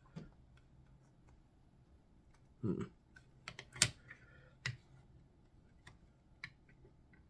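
Small hard-plastic parts clicking and tapping as they are worked at to get them out of their packaging. The clicks come irregularly, with a sharp loudest click a little before four seconds in.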